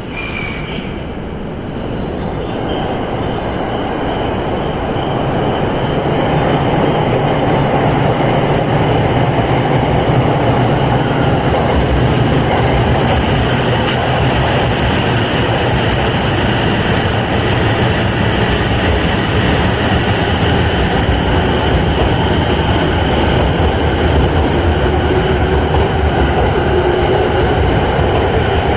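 A Tokyo Waterfront Area Rapid Transit 70-000 series electric train pulling out of the station. The rumble of its motors and wheels on the rails grows louder over the first several seconds, then runs on steadily.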